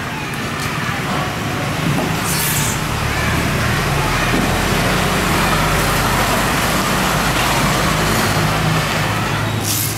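A motor engine running, a low steady hum that comes in about three seconds in and holds, over general traffic noise.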